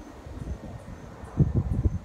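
Wind buffeting the phone's microphone in irregular gusts, much stronger in the second half, over the low rumble of a jet airliner climbing overhead.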